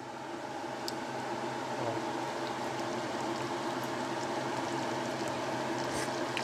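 Pot of arroz caldo (rice porridge) bubbling steadily at a simmer, nearly cooked. There is a faint tick about a second in and another near the end.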